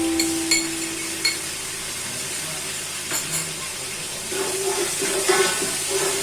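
Food sizzling in a cooking pot, with a steady hiss and a few sharp clinks of a spoon against the pot. A held musical note fades out in the first second or so.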